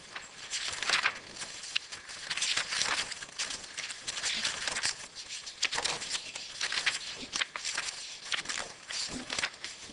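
Paper rustling as the pages of a printed document are leafed through and shuffled: a long run of irregular dry crackles and swishes.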